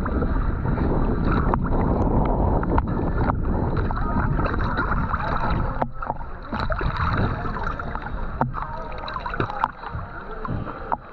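Sea water sloshing and gurgling around a half-submerged action camera at the surface, with small crackles of splashing and bubbles; it is louder in the first half and quieter after about six seconds.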